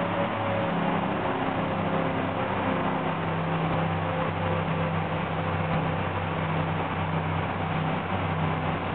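Twin MerCruiser MAG 350 V8 inboard engines running under way at speed, with the rush of wind and water around the hull. The engine note drops slightly over the first few seconds, then holds steady.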